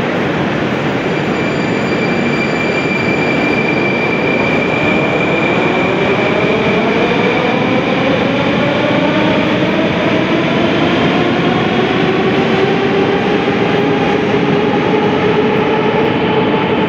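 An 81-740/741 Rusich metro train pulling out of the station. Its running noise fills the station, and from about four seconds in a motor whine rises steadily in pitch as the train speeds up.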